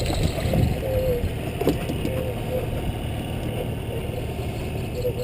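Fishing boat's motor running steadily, a low even hum under wind and water noise.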